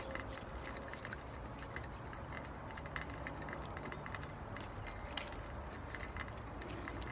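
Faint, irregular footsteps of a person walking away on a driveway, over a steady low outdoor rumble.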